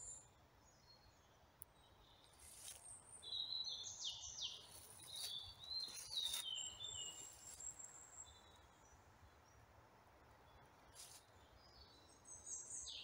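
Faint songbird song in woodland: runs of high chirping notes from about two seconds in for several seconds, and a short phrase again near the end, over a quiet background hiss.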